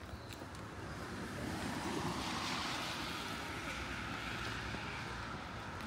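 A vehicle passing on a rain-wet road: its tyre hiss swells to a peak about two seconds in, then eases off slowly.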